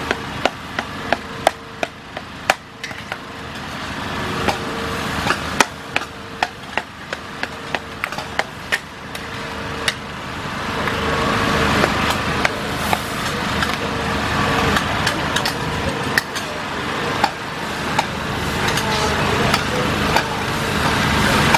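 Long metal ladles and spatulas clanking and scraping against huge steel woks as fried rice and fried rice vermicelli are stir-fried, with many sharp knocks. A steady hiss of frying grows louder from about halfway through.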